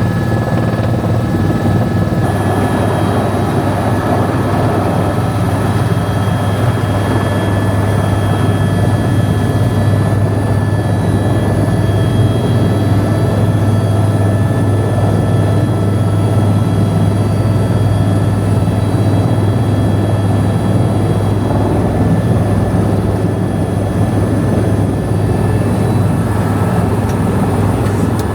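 Helicopter in flight: a steady, loud drone of rotor and turbine with a high whine that drops slightly in pitch near the end.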